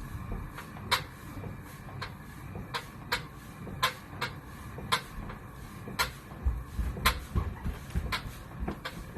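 ProForm Cardio HIIT Pro magnetic-resistance trainer in motion, making sharp clicks at irregular spacing, about one to two a second, over a low rumble. This is a fault noise that two rounds of technician repairs and part swaps have not cured, and its cause is still unknown.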